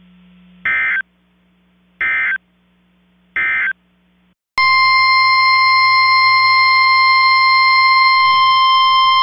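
Emergency Alert System data tones: three short buzzy bursts of SAME digital code, the end-of-message signal. About four and a half seconds in, the NOAA Weather Radio 1050 Hz warning alarm tone starts, one steady high tone announcing the next alert.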